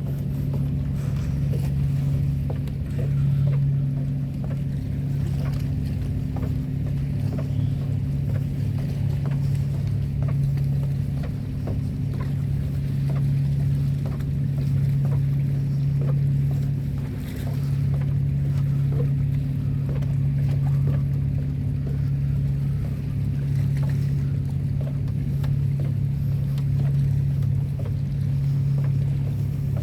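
An engine running with a steady low drone that holds one pitch throughout, with faint scattered clicks over it.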